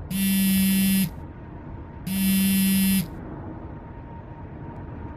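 Mobile phone buzzing with an incoming call: two harsh buzzes about a second long each, a second apart.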